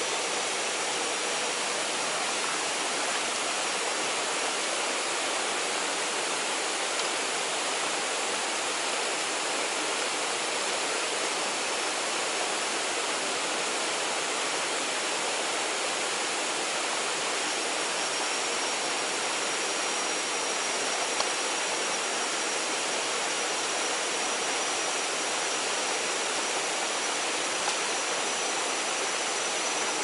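Small waterfall pouring over rocks into a pool: a steady rush of water. A faint, thin, high steady tone joins it past the middle, and there are a couple of light clicks later on.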